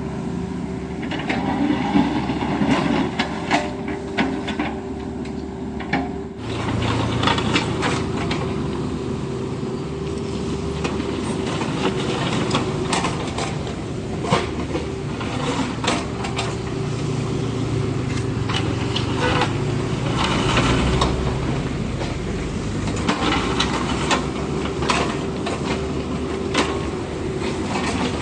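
Kubota U50 mini excavator's diesel engine running under load with a steady hydraulic whine, amid repeated clanks and knocks of the machine and its bucket working rock and soil.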